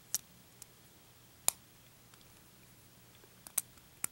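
Small sharp clicks of hard plastic Gundam model kit parts being handled and pressed together, about four distinct clicks with a few fainter ticks between.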